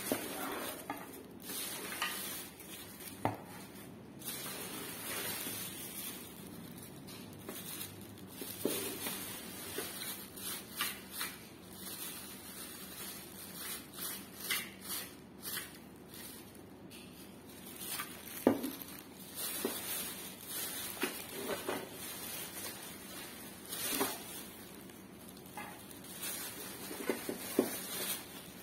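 Plastic courier mailer bags and inner plastic wrapping rustling and crinkling as they are pulled open and crumpled by hand, in irregular bursts with sharp crackles.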